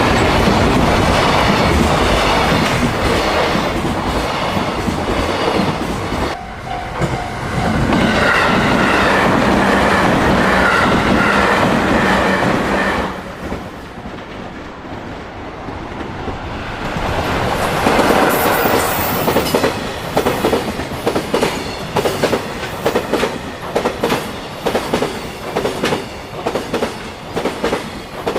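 Freight trains passing at speed: loud rushing rail noise that drops away about halfway through, then another train's wagons clatter over the rail joints in a steady, regular run of clicks.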